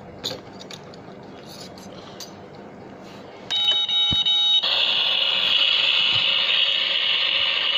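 Battery-operated toy kitchen's electronic sound effect through its small speaker. About three and a half seconds in there is a steady beep lasting about a second, then a loud, steady hissing buzz: the toy's cooking sound, switched on by a button press.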